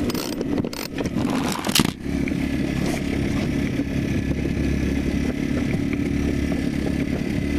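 Camera being handled, with knocks and scraping for about the first two seconds. Then a steady, low motor drone.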